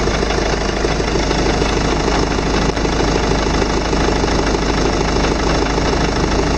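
VW Tiguan's engine idling, heard from underneath the car, with a dense rattling knock running through it while the steering wheel is turned toward full lock; the owner thinks the knock sounds like a worn ball joint, a half-plastic kind of knock.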